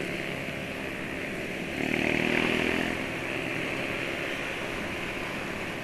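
Yamaha scooter engine running steadily while riding at about 50 km/h amid motorcycle traffic. The sound swells for about a second, around two seconds in.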